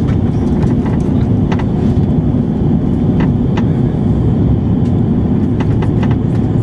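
Steady low rumble and hiss of a jet airliner's engines and airflow heard inside the passenger cabin during the descent to landing, with a few light clicks.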